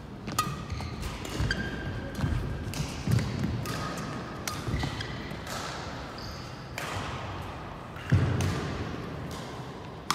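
Badminton play on a court mat: sharp racket hits on the shuttlecock mixed with short shoe squeaks and footfalls, a dozen or so clicks spread irregularly, with a heavy low thump about eight seconds in.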